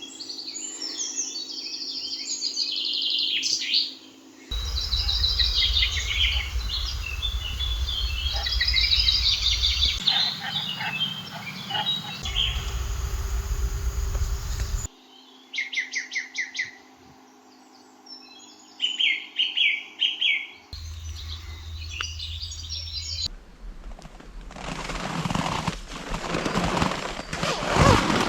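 Wild songbirds singing in a series of short, abruptly cut stretches, some with a low rumble of wind on the microphone beneath them. Near the end the birdsong gives way to a dense, crackling noise.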